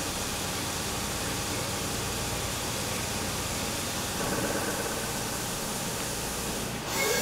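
CNC machining centre face-milling titanium with a 3-inch indexable shell mill under flood coolant. The spindle and cutter run steadily inside a hiss of coolant spray, a little louder, with a faint whine, from about four seconds in.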